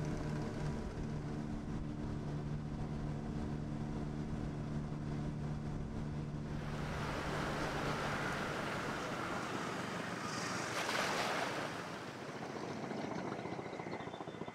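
An engine running steadily with a low hum, fading out about halfway through as a rushing noise swells in, peaks about three-quarters of the way through and then eases off.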